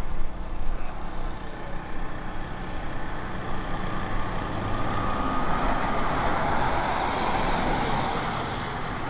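A Ford Ranger race truck's engine running at speed on an oval track. It grows louder as the truck comes down the straight and passes, loudest about six to eight seconds in, then eases off.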